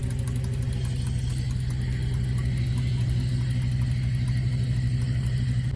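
Т-130 bulldozer engine running steadily with an even, rapid pulsing beat. The engine has a knock that was traced to a broken crankshaft.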